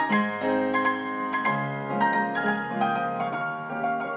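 Instrumental piano music: a melody of separate struck notes over lower held bass notes.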